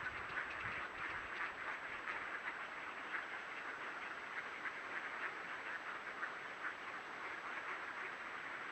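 A large flock of ducks calling without a break, many quacks overlapping into a dense chatter.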